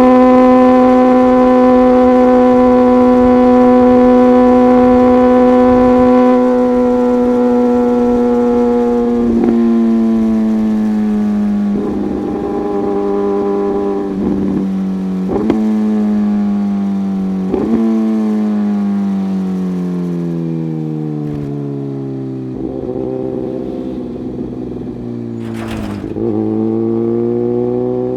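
Suzuki GSX-R1000R's inline-four running through an M4 full exhaust system. It holds a steady high note for about nine seconds, then the revs fall slowly as it decelerates, with several sharp pops from the exhaust along the way. The revs pick up a little near the end.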